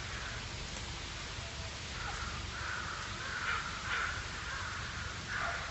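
Crows cawing faintly, a run of harsh calls about two to four and a half seconds in.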